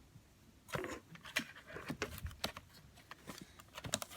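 Scattered small clicks and brief rustles from hands working with cardboard, tape and scissors.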